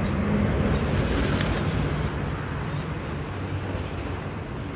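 Freight train cars rolling past on the rails, a steady rumble with one sharp clank about a second and a half in, fading as the end of the train moves away.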